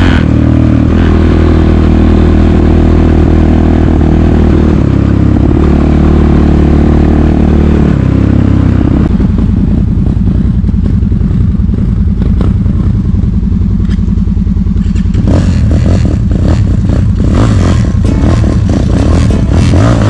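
A vehicle engine running steadily for the first half. Then the single-cylinder four-stroke engine of a GR8 enduro motorcycle runs at low revs, with sharp throttle blips and clatter in the last few seconds as it is ridden through snow.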